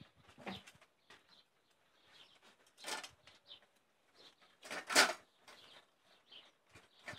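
German Shepherd puppies eating from stainless steel bowls set in a metal stand: irregular clicks and knocks of muzzles and bowls, with one louder knock about five seconds in.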